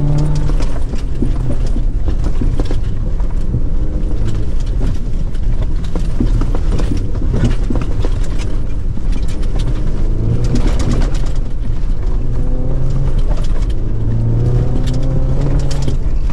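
In-cabin sound of a 2024 Chevrolet Colorado ZR2 Bison driven fast over a rough desert dirt trail. Its 2.7-litre turbocharged four-cylinder drones steadily and rises in pitch as it accelerates, about a third of the way in and again near the end, under a run of knocks and rattles from the uneven ground.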